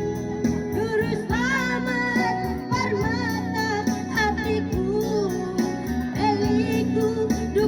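A song: a singing voice holding and bending long notes over steady instrumental backing.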